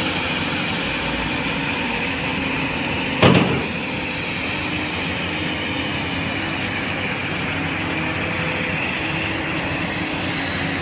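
Ultratrex AT200 amphibious excavator's diesel engine running steadily under work, with one loud thump about three seconds in.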